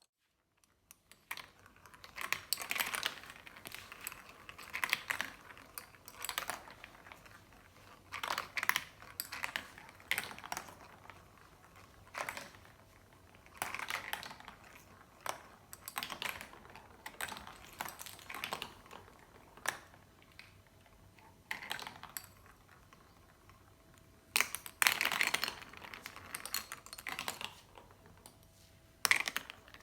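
Marbles rolling and clicking along a marble-run track, in irregular bursts of rattling clicks.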